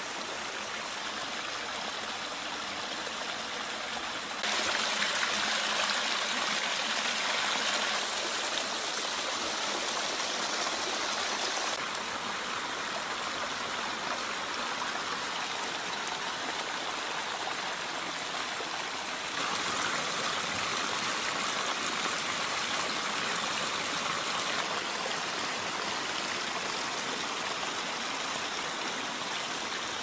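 Water from a pondless waterfall splashing and rushing over boulders and stone channels: a steady hiss of falling water that steps louder and softer several times.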